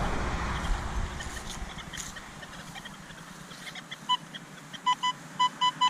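Nokta Legend metal detector giving a run of short beeps, all at one mid pitch, about four seconds in, as the coil passes back and forth over a shallow target. The target reads 21, which the detectorist takes for can slaw, shredded aluminium can. Before the beeps there is a low, rustling noise.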